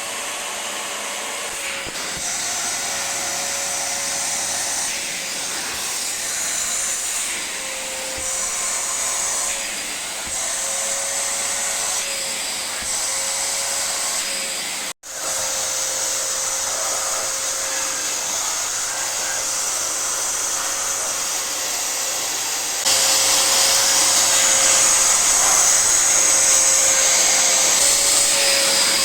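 Eureka Forbes 20-litre canister vacuum cleaner running: a steady motor whine over rushing air, its pitch and hiss shifting slightly as the suction load changes. It drops out for an instant about halfway through, and it is louder and hissier for the last several seconds.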